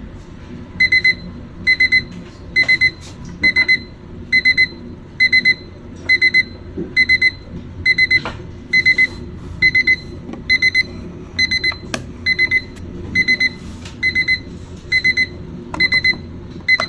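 Digital alarm clock's alarm going off: clusters of quick, high-pitched electronic beeps repeating a little faster than once a second.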